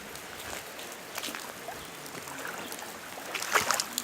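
Water splashing and trickling as a muddy boot is rinsed clean, over a steady hiss, with a cluster of sharper, louder splashes about three and a half seconds in.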